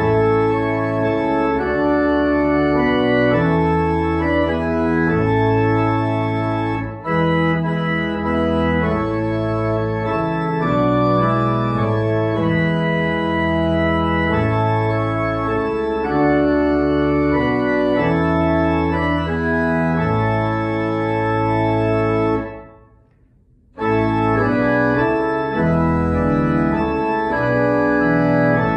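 Church organ playing a hymn tune in sustained chords that change every second or so. Near the end of one verse it stops for about a second, then takes up the next verse.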